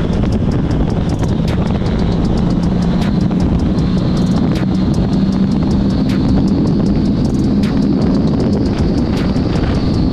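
Motorcycle engine running steadily at highway cruising speed, a constant drone with wind and road rumble rushing over the rider's microphone.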